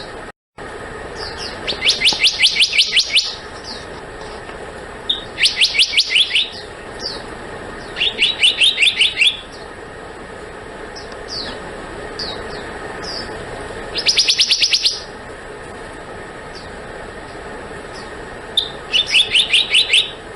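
Black-naped monarch calling: five quick runs of rapidly repeated high notes, each about a second long, with single short notes between them.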